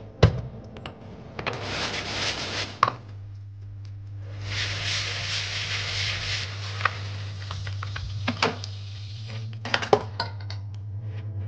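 Tap water running into a plastic rice-washing bowl of rice in a stainless steel sink, in two stretches as the rice is rinsed, with a few sharp knocks of the bowl handled against the sink.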